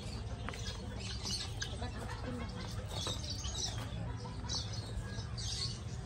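Caged birds in an aviary chirping in many short, scattered calls over a low steady rumble.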